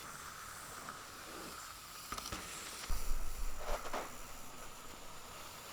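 Mountain bike riding on a dirt trail, heard from a small camera mounted on the rider: a steady hiss of tyres and air with a few sharp rattles, and a short low rumble about three seconds in.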